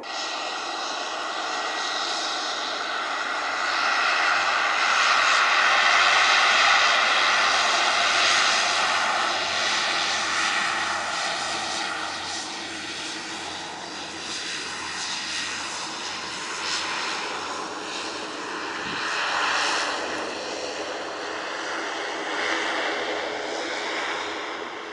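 Beechcraft King Air twin turboprop engines running: a steady whine over the engine noise, loudest about a quarter of the way in, then easing. It swells again near the end as the whine rises slightly in pitch.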